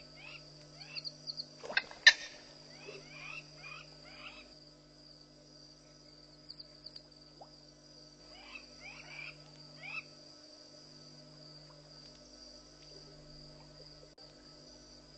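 Odd sounds at a waterhole at night: groups of short, falling chirp-like calls and, about two seconds in, two sharp, loud snaps, over a steady trill of crickets. The uploader wonders whether it is a green-backed heron catching something in the water near the microphone.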